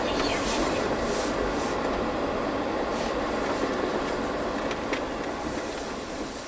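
Steady rolling rumble of a moving vehicle, easing off near the end.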